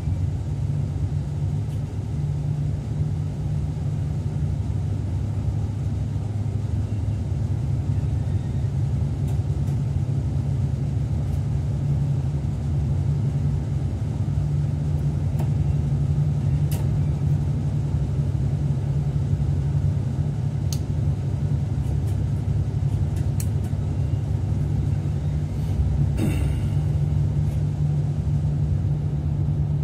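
Steady low hum and rumble of a train running on the line, heard inside the driver's cab. A few faint ticks come in the second half, and there is a short hiss near the end.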